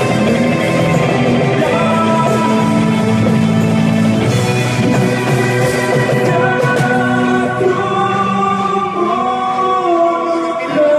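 Rock band playing, with long held notes that shift pitch every second or two.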